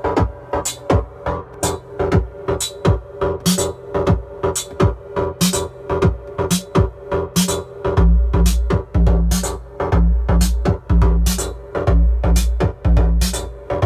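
Electro pattern played on an Arturia Drumbrute analogue drum machine: a steady run of drum hits over sustained modular synth tones. About eight seconds in, a heavy bass drum comes in and keeps going with the pattern.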